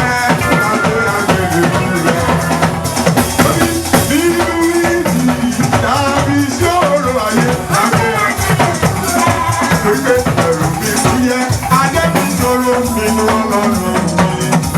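Church band music: drums and a shaker keep a steady beat under pitched instruments.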